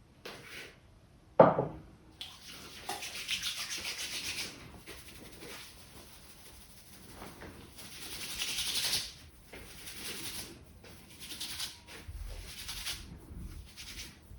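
Hands rubbing briskly over a person's scalp and hair during a head massage, a rough rustling friction that comes in spells. There is one loud smack about a second and a half in.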